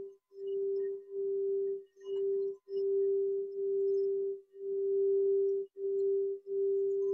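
Quartz crystal singing bowl tuned to G, sung by rubbing a mallet around its rim: one steady pure tone with a faint higher overtone. The tone keeps breaking off for a split second about once a second.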